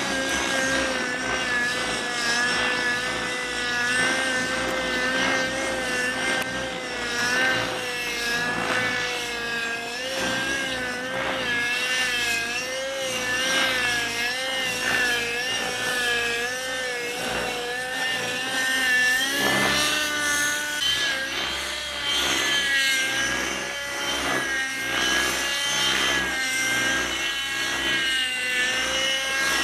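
Radio-controlled model helicopter flying, its motor and rotor giving a steady whine whose pitch wavers up and down as the throttle changes, with a sharper rise and change in tone about twenty seconds in.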